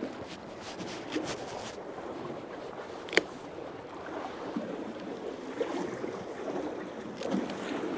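Sea water lapping and sloshing against the pier, with one sharp click about three seconds in.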